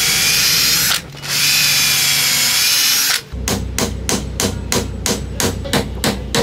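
Cordless drill boring a pilot hole into a hardwood strip, in two runs with a short stop about a second in. Then, from about three seconds in, a hammer taps a nail into the glued wood strips with quick, even light blows, about four or five a second.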